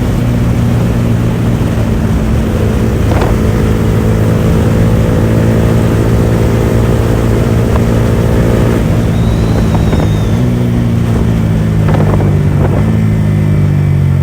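Yamaha R15 V4's single-cylinder engine running steadily through an open aftermarket R9 exhaust with no dB killer, its note shifting slightly in pitch a couple of times.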